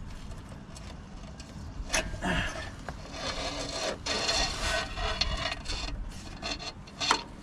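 Concentric hydraulic clutch slave cylinder being worked out of the bellhousing by hand, with its fluid line dragged after it: irregular rubbing and scraping, and a sharp click about two seconds in and another near the end.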